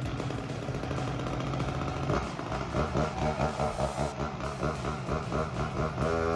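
1997 Husqvarna 254 XPG two-stroke chainsaw running. From about two seconds in, its sound swells and falls about twice a second.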